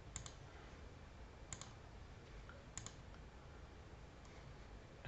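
A few faint computer mouse clicks, each a quick press-and-release, about a second apart, over low room hum.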